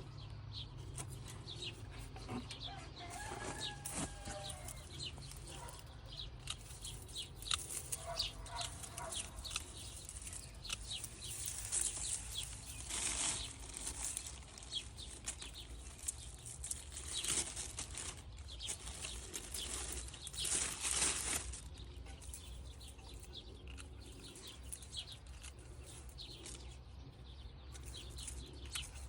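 Mint plants being harvested by hand: leafy stems rustling, with many short clicks and snips and several louder rustling bursts in the second half. A couple of brief bird or hen calls come early on.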